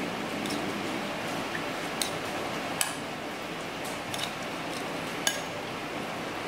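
Fork stirring lobster salad in a glass mixing bowl, with scattered light clinks of metal on glass, about seven of them, over a steady hiss.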